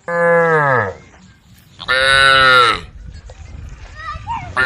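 Cattle mooing: two short calls, each sliding down in pitch at the end, with a third beginning near the end.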